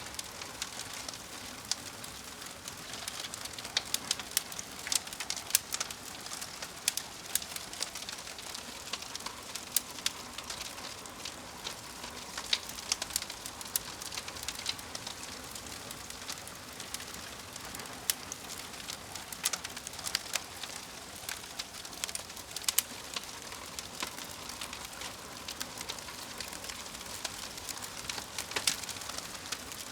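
Wood fire crackling, with frequent sharp pops over a soft steady hiss.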